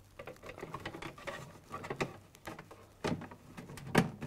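Hotpoint fridge's plastic light cover being slid back onto its housing: irregular light scraping and small clicks of plastic on plastic, with sharper clicks about three seconds in and near the end.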